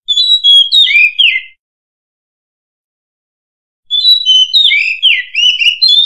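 Oriental magpie-robin singing two short phrases of clear whistled notes with quick rising and falling slurs. The first phrase fills the opening second and a half, and the second starts about four seconds in.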